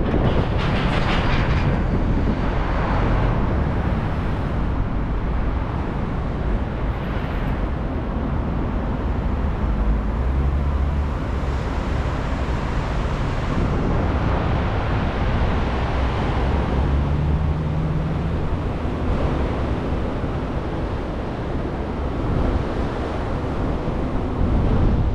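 Steady road and wind noise from a car driving along a mountain road, a constant low rumble.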